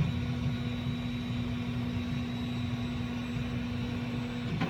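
Dremel 3D40 3D printer's stepper motor whining at one steady pitch for about four and a half seconds, then stopping abruptly, over a steady low hum: the printer moving back into position to resume a paused print.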